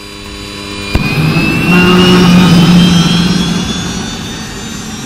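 Turbine engine sound effect: a sharp bang about a second in, then a loud roar with a rising whine that swells and eases off, standing for the engines lighting up once they are spun up to speed.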